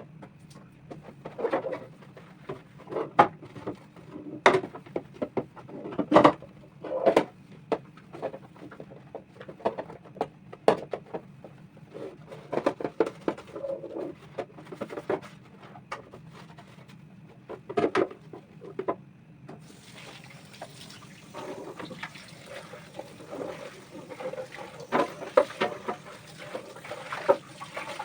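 Repeated knocks, clicks and clatter of items being handled and set down, then water running steadily from about two-thirds of the way in, with more knocks over it.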